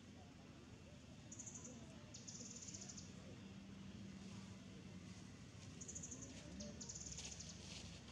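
Faint, high-pitched trilling calls from a small wild animal, heard as two pairs: a short trill then a longer one, the second pair about four seconds after the first. They sit over quiet outdoor background with a faint low hum.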